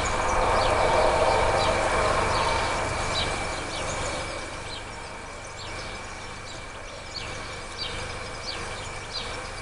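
Small birds chirping in short, quick notes off and on, over a steady high-pitched hum. A louder rumbling noise swells over the first few seconds and then fades away.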